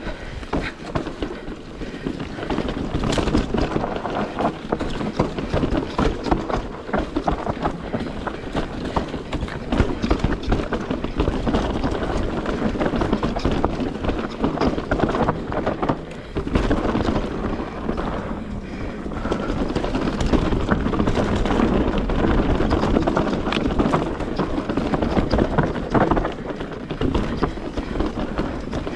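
Mountain bike riding down a rough trail of rocks and roots: the tyres and frame clatter with a dense run of small knocks and rattles over a steady rushing noise, easing briefly about two-thirds of the way through.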